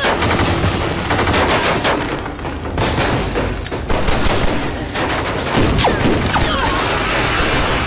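Rapid rifle fire from several guns at once in a film firefight, a dense fusillade of automatic shots.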